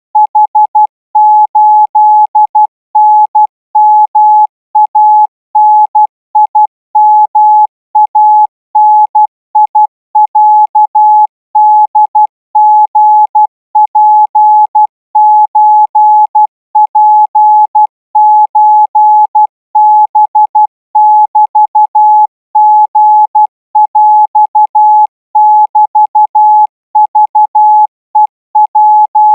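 Thai-alphabet Morse code sent at 16 words per minute as a receiving test: a single-pitch beep keyed on and off in short dots and longer dashes, with brief gaps between characters.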